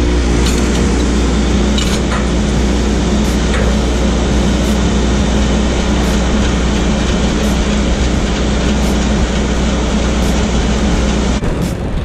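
Heavy truck's diesel engine running steadily under a loud, even rushing noise, which briefly thins out near the end.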